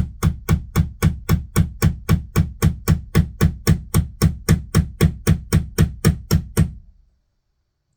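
Hammer blows driving a nail into a wall, a steady run of about three strikes a second that stops about seven seconds in. The nail is not going any deeper.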